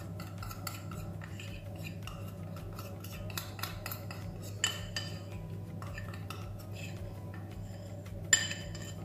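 Metal spoon scraping and clicking against a ceramic bowl as a thick cocoa and oil mixture is scooped out into another bowl, with two louder clinks, one about halfway through and one near the end. A steady low hum runs underneath.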